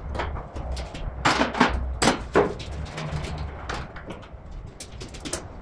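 Knocks and clanks of metal parts and tools being handled while a car's front end is taken apart, with a few louder knocks about a second and two seconds in, over a low steady hum.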